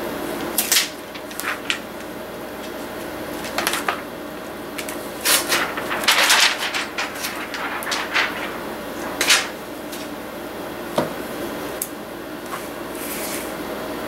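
Handling noise of a laptop LCD panel and its thin metal mounting brackets: scattered clicks, taps and short clatters, thickest about halfway through, over a steady low hum.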